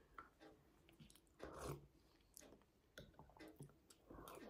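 Faint close-up eating sounds: a metal spoon clicking against a ceramic bowl of noodles and quiet chewing.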